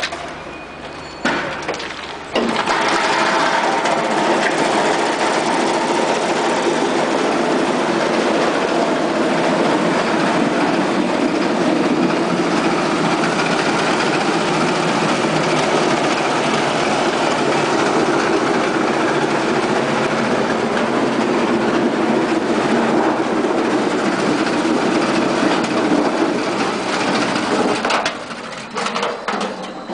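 Roll-forming machine running as it forms galvanized steel sheet into a curved, crimped arch panel for a frameless hangar: a loud, steady machine noise that starts about two seconds in and stops near the end, after a few short knocks at the start.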